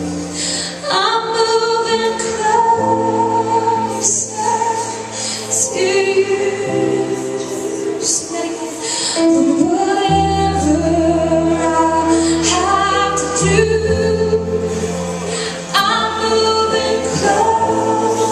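Worship music: a woman singing over sustained chords from the band, with long held notes.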